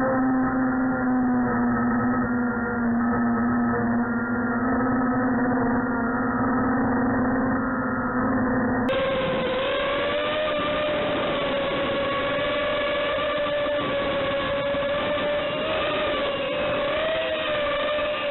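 Electric motors and propellers of an FPV model aircraft running with a steady whine. About nine seconds in the pitch steps up to a higher, slightly wavering tone.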